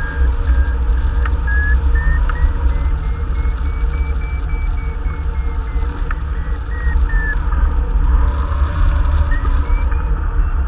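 Steady rush and buffeting of airflow on the microphone of a hang glider in flight, the loudest sound, with a variometer beeping over it in quick short beeps whose pitch slowly rises and falls. Beeping like this means the glider is climbing in rising air, here a thermal.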